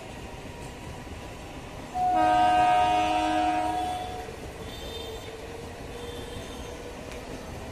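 Electric local train (EMU) running past on the tracks with a steady rumble. About two seconds in, a train horn sounds one blast lasting around two seconds, then fades.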